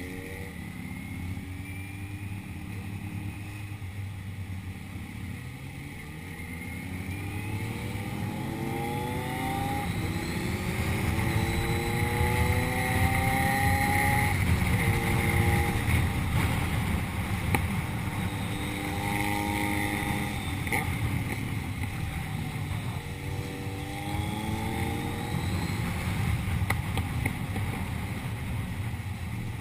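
A vehicle engine accelerating again and again, its pitch climbing and then dropping back as it shifts gears, over a steady low rumble.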